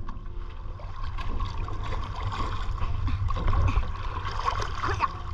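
Choppy sea water lapping and splashing around a camera held at the water's surface, with a steady low rumble on the microphone. A faint steady tone runs underneath.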